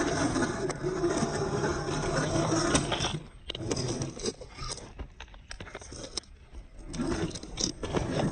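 RC rock crawler with a 35T brushed electric motor driving over trail ground: motor and gear whine with tyres crunching and scraping. The motor eases off for a few seconds in the middle, leaving scattered clicks and crunches, then picks up again near the end.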